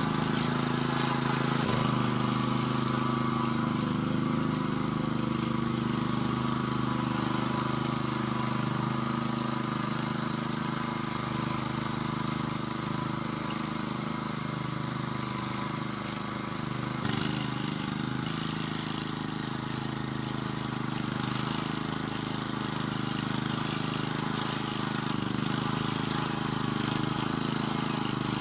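Vari two-wheel walking tractor's engine running steadily as it pulls a tine cultivator through the soil of a garden bed. Its note shifts slightly about two seconds in and again around seventeen seconds.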